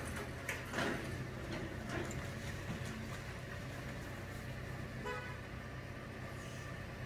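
Hydraulic excavator's diesel engine running steadily, with a few sharp knocks in the first two seconds. A vehicle horn gives one short beep about five seconds in.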